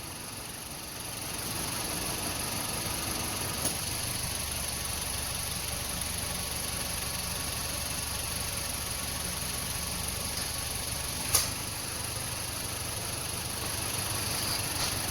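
Mazda CX-7 engine idling steadily, warm after a short drive, with a light click about four seconds in and a sharper click a few seconds before the end.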